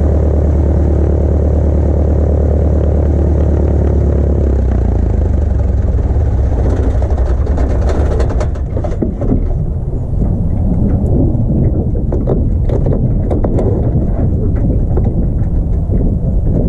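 Piper Arrow's single piston engine running steadily, dropping to a lower, rougher note about four and a half seconds in. From about eight seconds the even engine tone breaks up into irregular rumbling and knocks.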